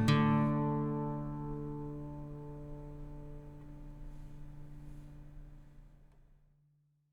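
Background music ending on a last acoustic guitar chord that rings out and fades away over about six seconds.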